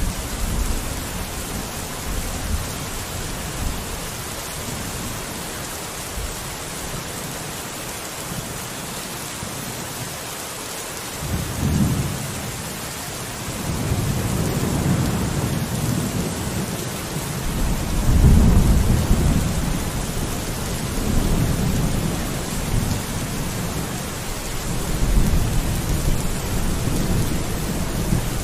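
Steady rain falling, with distant thunder rolling in deep rumbles that begin a little under halfway through and swell loudest past the middle.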